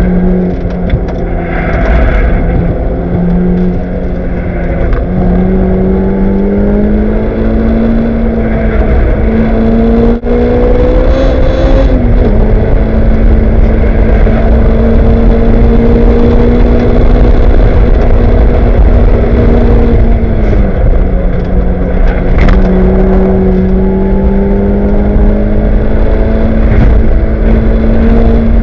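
Lotus race car's engine heard from inside the cockpit under hard driving, over heavy wind and road noise. The engine pitch climbs, drops sharply at a gear change about twelve seconds in, holds steady, dips again around twenty seconds in, then climbs once more.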